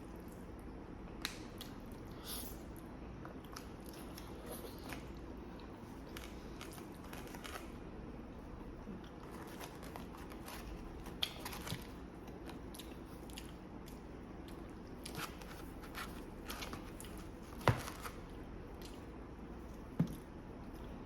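Close-miked eating sounds of a person chewing pasta, with scattered soft mouth clicks and a few sharper clicks, the loudest about 18 seconds in and another near the end.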